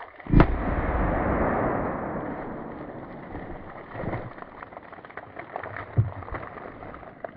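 A single .327 Federal Magnum revolver shot about half a second in, followed by a long noisy tail that fades over a few seconds. Two fainter knocks follow later.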